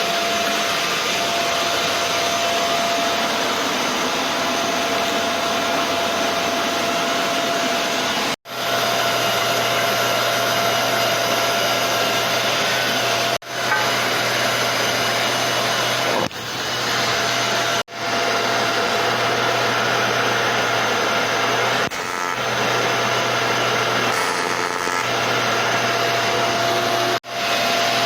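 TIG welding arc on an aluminium alloy wheel: a steady buzzing hiss with a hum under it. It stops suddenly and starts again four times.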